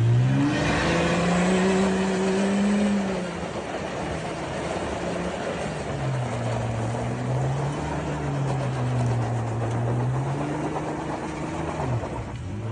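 An engine revving up, holding, then dropping back and running at a lower pitch under a steady rushing noise, before cutting off near the end.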